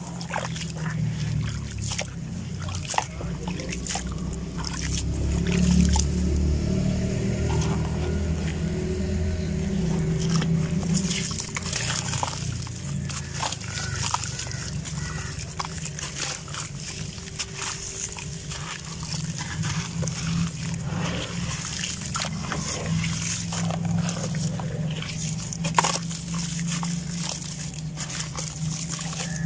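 Wet, gritty gravel-sand blocks being crushed and crumbled by hand in a tub of water: sloshing and splashing water with many small sharp gritty crunches.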